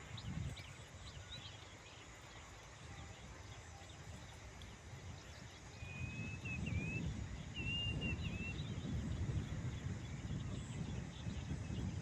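Outdoor field ambience: small birds giving faint chirps, with two short runs of thin whistled notes in the middle, over a low rumbling noise that gets louder from about half-way.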